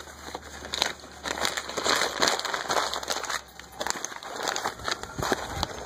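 A strip of paper torn from a charcoal bag being crumpled by hand into a loose ball, with irregular crinkling and crackling.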